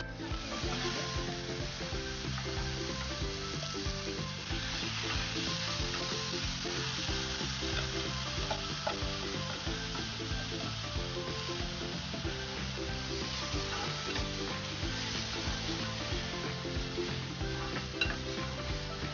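Cumin and whole spices sizzling in hot ghee. Partway through, soaked rice goes into the pot and is stirred with a spoon, and the sizzle carries on steadily under the stirring.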